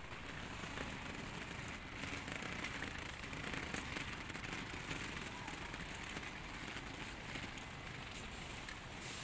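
Wheeled suitcases rolling over a concrete road, a steady rattling crackle of many small clicks, with footsteps.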